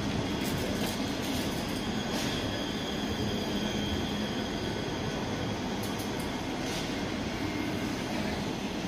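A train running at a station platform: a steady rumble with a low hum, a thin high tone above it, and a few sharp clicks.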